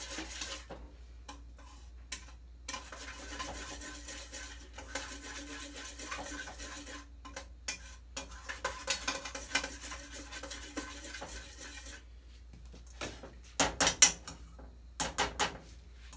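A spoon stirring a sugar, Jell-O and corn syrup mixture in a pot on the stove, scraping around the pot in long stretches with a short pause. Near the end come a few sharp knocks of the spoon against the pot.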